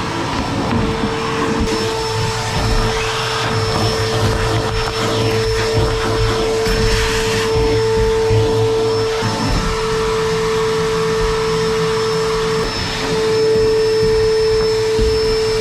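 Vacuum cleaner running continuously, sucking dirt out of a pickup truck bed: a steady motor whine over the rush of air, its pitch shifting slightly a couple of times.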